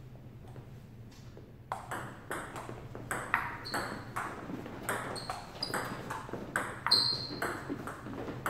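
Table tennis rally: a celluloid-type ping-pong ball clicking off paddles and bouncing on the table, in a steady run of sharp ticks about three a second that begins a little under two seconds in.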